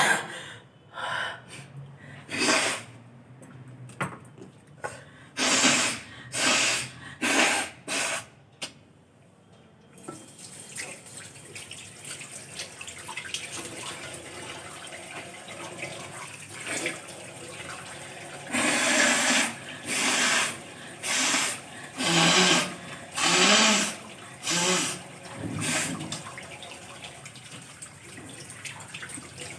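Repeated forceful nose blowing into a wash basin: a quick run of short, sharp blows. A tap starts running about ten seconds in, and a second, louder series of about eight blows follows over the running water.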